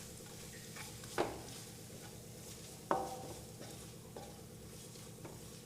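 Spatula stirring an onion and spice masala in a kadai over a faint sizzle, with a few clicks of the spatula against the pan, the two loudest about one and three seconds in.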